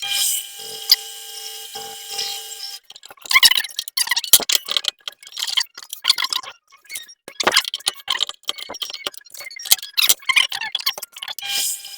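Metal lathe drilling a hole in aluminium with a drill in the tailstock: a steady whine for the first few seconds, then a long run of irregular metallic clicks and scraping.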